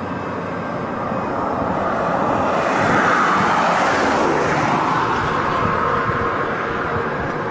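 Canadian Pacific train passing close by: its noise builds to a peak about three seconds in, then drops in pitch as it goes past.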